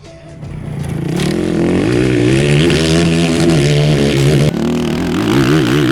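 Honda CRF450RX enduro motorcycle's single-cylinder four-stroke engine revving, swelling in over the first second and then running loud, its pitch rising and falling as the throttle is worked.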